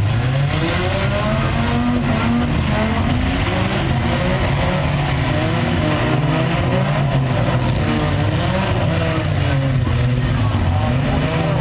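Several demolition derby car engines running and revving at once, their pitches rising and falling over one another above a steady low rumble.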